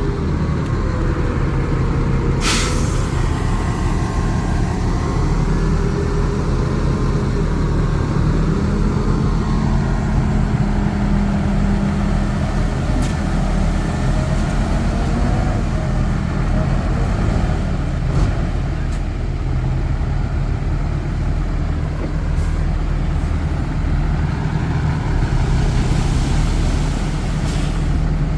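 Heavy diesel earthmoving machinery running steadily, its pitch drifting slightly up and down. A short hiss of air comes about two and a half seconds in.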